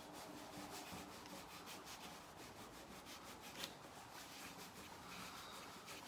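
Cloth rubbing T-Cut metal polish over a tarnished brass door-handle backplate in repeated short back-and-forth strokes: a faint, steady scrubbing.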